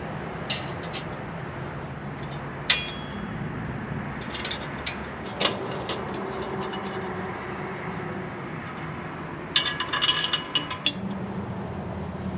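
Metal tools and exhaust hardware clinking and scraping: a few scattered sharp clinks, one ringing strike about three seconds in, and a quick flurry of ringing clinks near the end, over a steady low hum.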